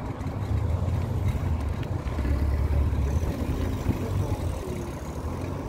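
Low rumble of street traffic heard from a moving bicycle, swelling over the first three seconds and then easing.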